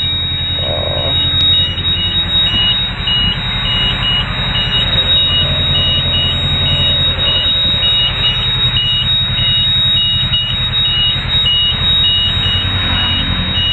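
Bus engine running with a steady low hum, while an electronic beeper sounds a short high beep about twice a second.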